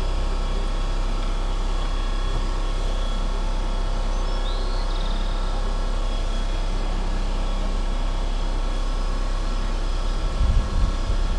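A steady machine hum with a deep low drone runs throughout, with a brief faint chirp a little before the middle and a few low knocks near the end.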